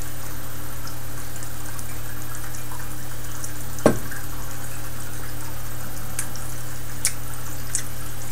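Steady hiss and low hum throughout. About four seconds in comes a single sharp knock of a beer glass set down on a table, and later a few faint ticks.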